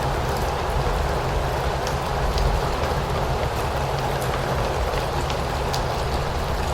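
Steady rainfall with a low rumble beneath it and scattered single drops ticking through the hiss.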